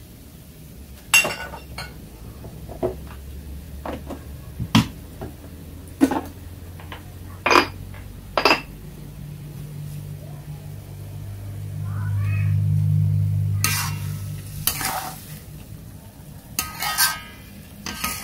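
Metal spatula knocking and scraping against a metal wok while shellfish are stirred in sauce, in sharp separate strikes every second or two. A low hum swells and fades in the middle.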